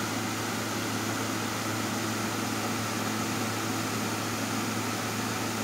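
Holmes Blizzard HPF322 tilting table fan running on high speed: a steady rush of air with a constant low motor hum underneath.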